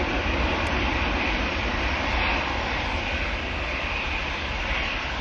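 Jet engines of a Boeing 737-800 running steadily as the airliner rolls along the runway, the noise easing slightly toward the end.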